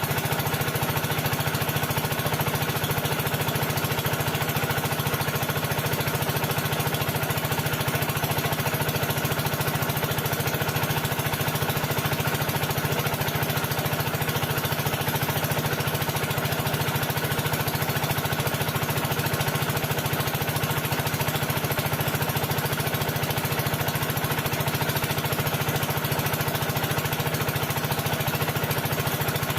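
A motor-driven machine running steadily with a fast, even pulsing and a strong low hum, unchanging throughout.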